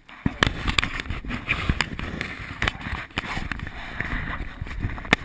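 Irregular clattering knocks and rustling close to the microphone, with a low rumble underneath.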